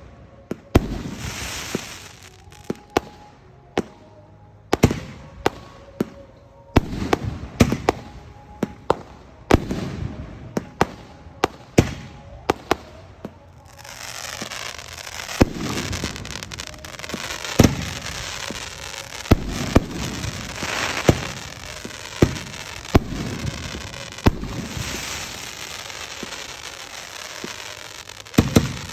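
Aerial fireworks display: a rapid, irregular series of sharp shell-burst bangs, several a second at times. About halfway through, a continuous hiss sets in under the bangs and runs on with them.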